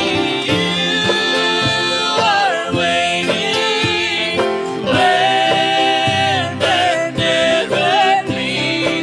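Gospel music in a country style: long held notes with vibrato over instrumental accompaniment.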